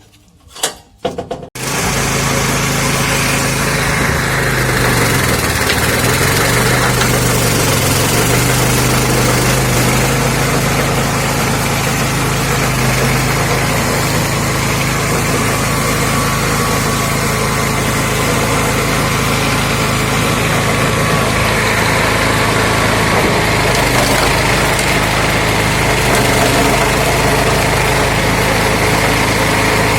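Lifan 6.5 hp single-cylinder petrol engine running steadily, driving a homemade screw-cone log splitter; it comes in about a second and a half in, and its pitch dips briefly a few times early on as it takes load.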